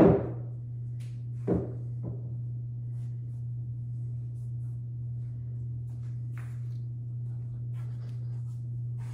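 Pool balls and table being handled after a break: a heavy thud at the start, a lighter knock about a second and a half in, then a few faint clicks over a steady low hum.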